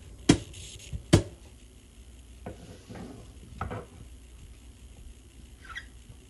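Chef's knife cutting through firm raw sweet potato and knocking on a bamboo cutting board: two sharp knocks in the first second or so, then a few softer cuts.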